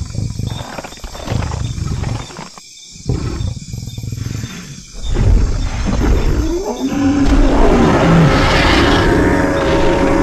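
Dubbed-in dinosaur roar sound effects: several short roars with brief gaps between them, then from about halfway a long, louder roar with a gliding pitch.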